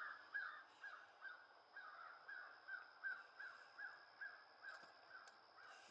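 A bird calls faintly in a steady run of short chirps, between two and three a second.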